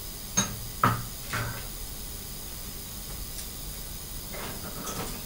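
Light knocks and clicks of a knife being handled and repositioned under a microscope: three sharp ones in the first second and a half, then a couple of fainter ones near the end, over a steady hiss.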